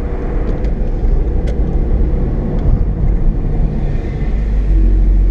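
Car engine and exhaust rumbling loudly in a road tunnel, a deep steady drone that swells louder about four and a half seconds in.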